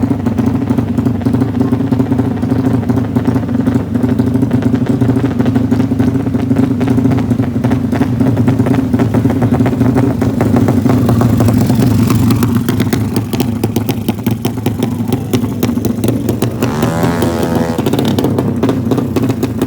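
Motorcycle engine running loudly and steadily, with a fast, even firing pulse.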